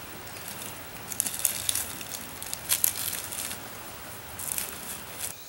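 Footsteps of people walking along a woodland trail through grass and leaf litter: irregular, crackling steps.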